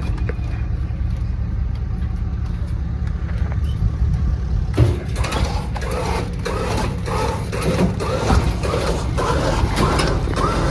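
A vehicle engine idling steadily. About five seconds in, a run of short repeated squeaks joins it, about two a second.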